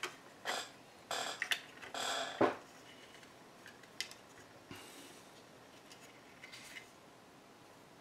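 Hard plastic earmuff housing and its wires being handled: scattered clicks and rustles, busiest in the first half with a sharper knock about two and a half seconds in, then a few faint clicks.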